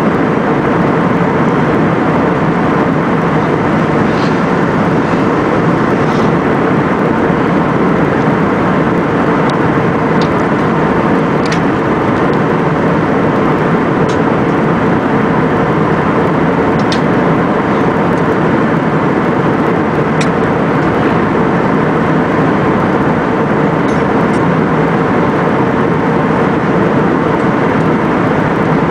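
Steady rush of engine and airflow noise heard inside an airliner cabin in flight, with a low hum under it and a few faint ticks now and then.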